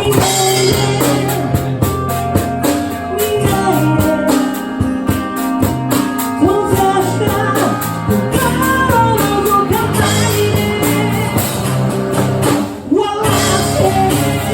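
Rock band music with guitar and drums, and a voice singing over it. The music drops out briefly near the end, then comes back in.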